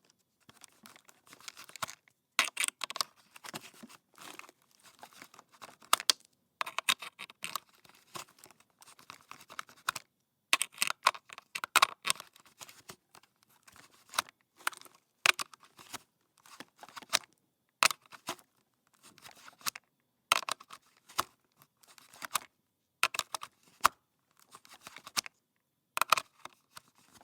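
An electrical plug being pushed into and pulled out of a wall socket again and again: sharp clicks as the prongs seat and release, with short scrapes and rattles of the plug and cord in between.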